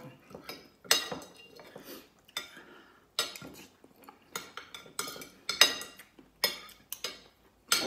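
Metal spoon and fork clinking and scraping against a ceramic plate while scooping up rice: a string of irregular sharp clinks, the loudest a little past halfway.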